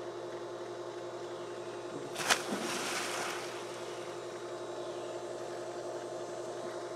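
A person jumping off a diving board into a swimming pool: one sharp splash about two seconds in, then about a second of water spraying and falling back. Under it runs a steady mechanical hum.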